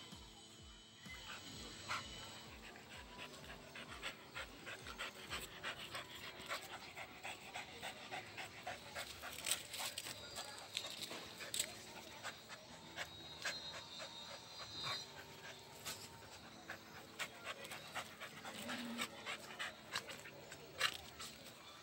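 Dogs panting while play-wrestling, with scattered short clicks and scuffs throughout.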